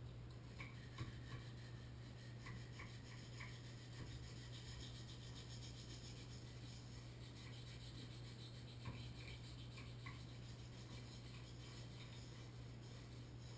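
Faint, repeated short scraping strokes of a hand tool against metal inside a Moen Posi-Temp shower valve body, with a few light clicks.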